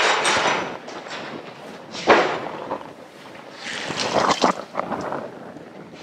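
Water from a kitchen sink tap splashing in several short bursts as hands are rinsed under it.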